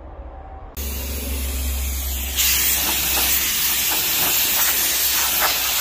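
Handheld die grinder with a carving burr starting up about a second in, then cutting into hard driftwood from about two and a half seconds, where it gets louder and hissier, with a scratchy grinding as the burr bites.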